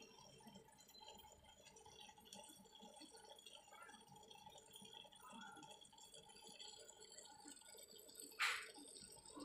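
Near silence: faint aquarium water dripping, with one brief sharp sound about a second before the end.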